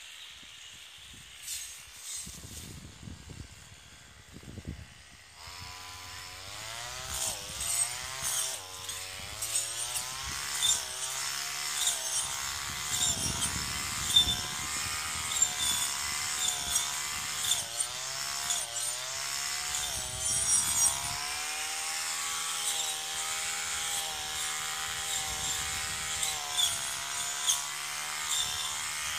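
Brush cutter's small engine opening up about five seconds in, after a quieter start with a few knocks. It then runs at speed, its pitch rising and dipping as the blade cuts through weeds, with frequent sharp ticks.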